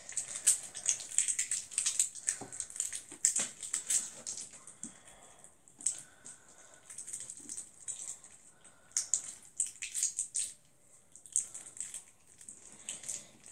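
Homemade slime being kneaded and squeezed between the hands, giving irregular wet clicks and crackly pops in bursts with short lulls. Baby lotion has just been worked in to stop the slime tearing.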